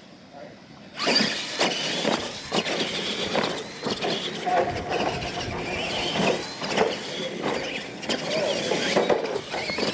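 Two R/C monster trucks racing side by side over dirt jumps, starting about a second in: a high motor whine rising and falling, with tyres scrabbling on dirt and repeated knocks as the trucks hit and land off the ramps.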